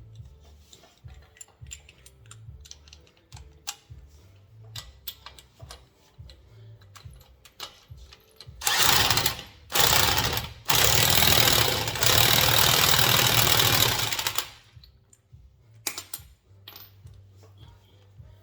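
Power tool running in three bursts, a short one, another short one, then a longer one of about three and a half seconds, while the rear brake caliper is put back together. Before and after it come scattered light metallic clicks and taps from tools and parts being handled.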